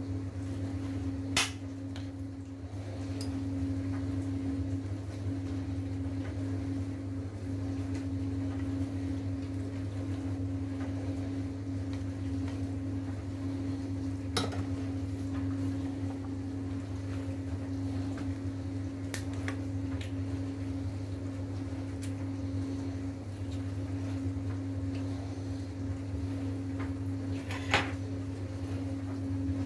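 Steady low hum in a kitchen, with a few short sharp clicks and knocks like plates and cutlery being touched, the loudest about a second and a half in and again near the end.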